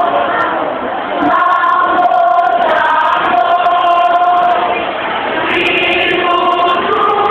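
Many young voices chanting in unison as a speech choir, holding pitched phrases of about half a second to a second each, with short breaks between lines.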